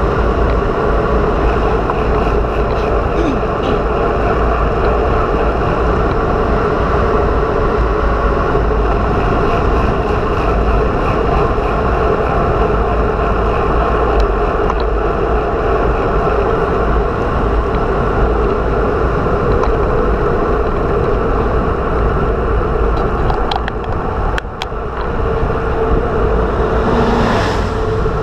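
Loud, steady wind noise buffeting the camera microphone of a bicycle moving fast downhill. Near the end, a passing motorcycle adds a brief swell over the wind.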